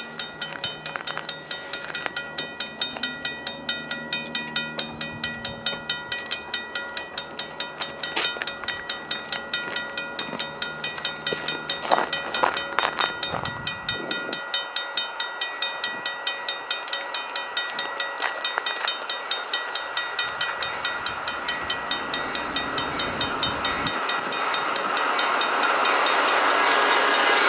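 Freight train led by GE diesel locomotives approaching, growing steadily louder and loudest in the last few seconds as the lead unit arrives, over a rapid, evenly repeating ringing.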